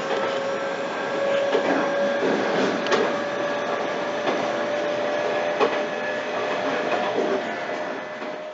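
Electric train running: a steady whine that rises slightly in pitch over an even rumble, with a few scattered clicks. It fades out near the end.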